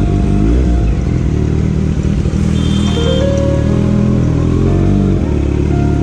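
Background music over a Kawasaki Z900's inline-four engine running at low speed in city traffic.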